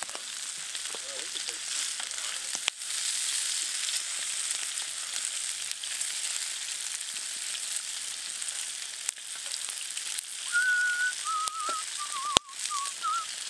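Seasoned pike and walleye pieces sizzling as they fry in a camp frying pan over a fire, with a few sharp clicks as a spatula turns them against the pan. Near the end comes a short wavering whistle.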